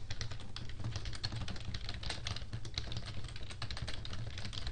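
Typing on a computer keyboard: a steady run of quick keystroke clicks over a low background hum.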